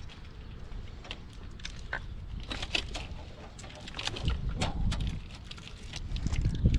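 Irregular clicks, clinks and knocks of hand tools and parts being handled on an engine, with a few dull low bumps.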